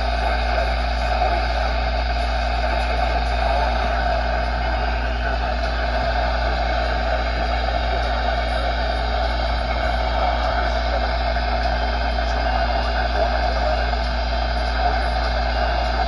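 Steady static hiss with a low hum from a NOAA weather alert radio's speaker.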